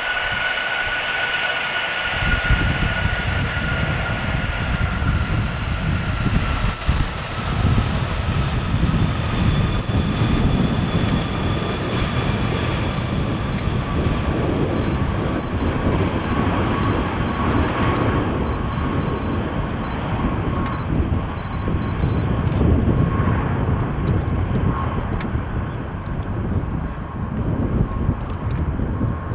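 Cargolux Boeing 747-400's four jet engines at takeoff power: a high whine that slowly falls in pitch over a deep, crackling rumble that sets in about two seconds in.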